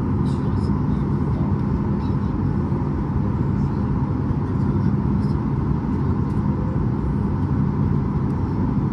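Steady rumble and hum inside the cabin of a Boeing 737 MAX 8 taxiing, its CFM LEAP-1B engines at idle.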